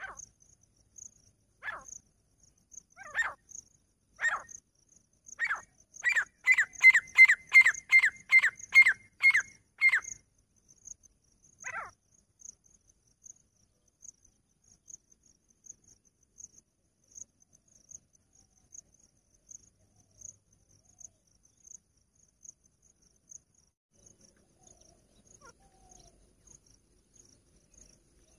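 Female grey francolin (teetar) calling: loud, high-pitched notes about a second apart that quicken into a rapid run of about three notes a second for some four seconds, then one last note, after which the calls stop. A faint insect ticking, about two a second, carries on throughout.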